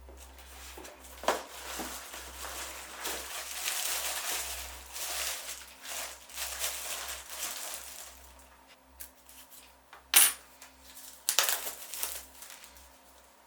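Hands handling PC parts and packaging: a stretch of rustling and crinkling, then a few sharp clicks and clatters of small hard pieces, the loudest about ten seconds in.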